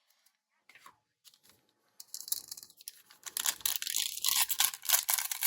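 Foil wrapper of a trading card pack being torn open and crinkling, starting about two seconds in as a dense crackle of quick rustles.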